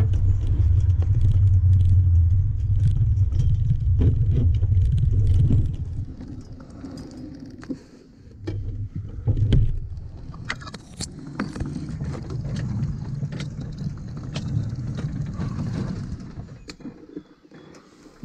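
Low rumble of a 7¼-inch gauge miniature locomotive running along its track, loudest for the first six seconds and then quieter, with frequent clicks, scrapes and knocks as twigs and roots brush against it.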